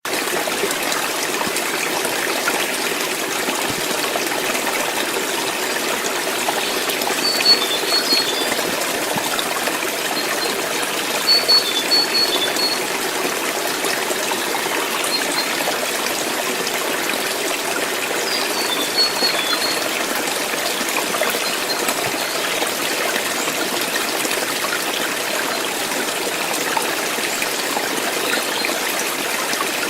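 Steady rushing of a flowing water stream. A few brief high chirps stand out over it three times.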